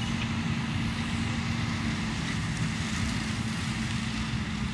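Tractor and square straw baler with a crushing rotor running steadily: a continuous engine and machinery drone with a steady low hum.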